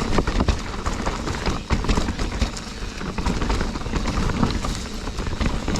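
Full-suspension mountain bike rolling over rocky singletrack: an irregular clatter of tyres striking rock and the bike rattling, over a steady low rumble.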